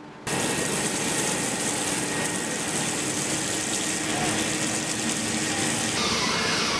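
Steady machine-shop noise from a large lathe turning a forged steel shaft, with a constant hiss of cutting. It starts abruptly just after the opening and shifts in character near the end.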